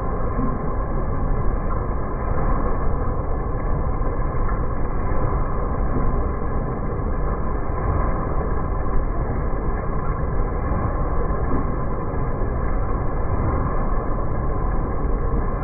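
Müller Martini Tempo saddle-stitching line running at production speed: a steady, dense mechanical clatter and rumble from the gathering chain and drives, without a break.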